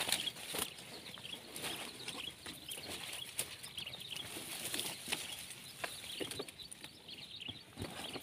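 Rustling and scattered light clicks as a nylon mesh bag is shaken out and feet and hands move through dry brush and leaves, with faint bird chirps in the background.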